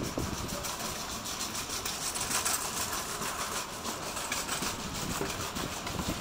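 Steady jet engine noise from a twin-engine airliner rolling out on the runway after landing, with gusts of wind buffeting the microphone.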